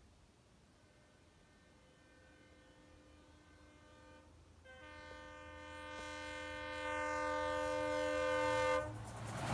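Indian Railways locomotive horn sounding as a train approaches: a fainter blast, a short break about four and a half seconds in, then a louder long blast that cuts off suddenly near the end. The low rumble of the approaching train grows steadily louder underneath.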